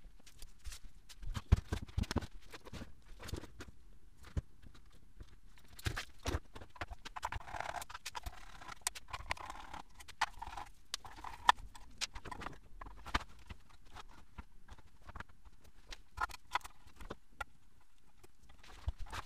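Irregular clicks, knocks and clatter of metal parts, wiring and hand tools being handled on a workbench while an aluminium laser chassis is dismantled, with a few louder knocks and some rustling partway through.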